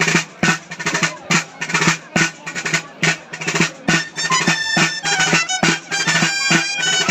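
Dolçaina (Valencian shawm) and tabalet drum playing dance music for a ball de plaça. There are steady drum strokes throughout, and a shrill reed melody comes in strongly about halfway through.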